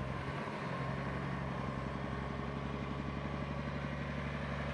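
Engine of a heavy-haul transport vehicle moving a multi-axle modular trailer, running steadily at an even low pitch.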